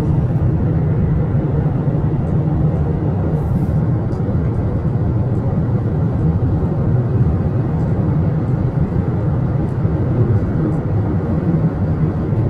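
Steady low rumble of road and tyre noise heard inside a car's cabin while driving at freeway speed.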